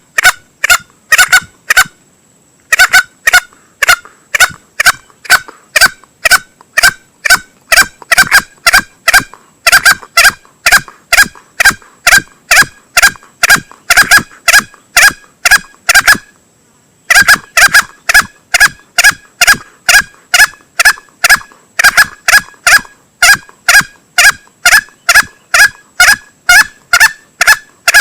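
Male green junglefowl calls played as a hunting lure: short loud calls repeated in quick succession, about two to three a second, with two brief pauses.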